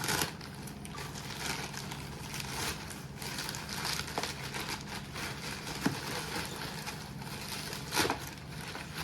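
Packaging being handled and opened: continuous crinkling and rustling of wrapping, with a louder rustle about eight seconds in, over a low steady hum.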